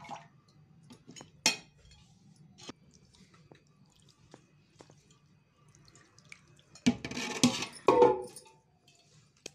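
A metal serving spoon clinking and scraping against metal pots as chicken curry is spooned over rice: a few light clinks in the first few seconds, then a louder run of scraping and knocks about seven to eight seconds in.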